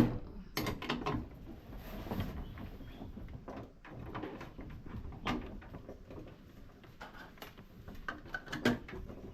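Irregular clicks, knocks and rattles of hands and tools working on battery cable terminals, with a sharp click right at the start and a few more near the end.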